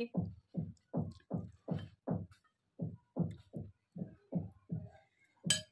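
Background music with a steady electronic beat of deep thumps, about two and a half a second, pausing briefly halfway, with one sharp click near the end.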